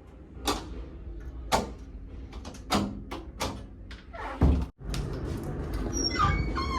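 A door being worked and swinging shut under its door closer: a series of clicks and knocks from the handle and latch, then a heavy thud as it shuts about four and a half seconds in. Brief high squeaks follow near the end.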